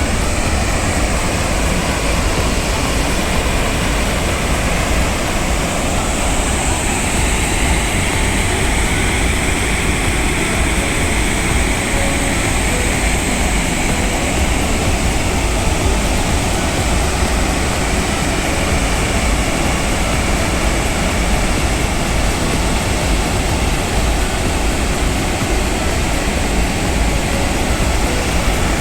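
Waterfall rushing in a loud, steady roar, its flow heavy and swollen after a night of rain.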